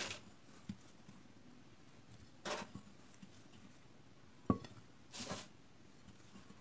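Cookies being rolled in cinnamon sugar in a glass bowl: three short, gritty rustles about two and a half seconds apart. A single sharp tap about four and a half seconds in is the loudest sound.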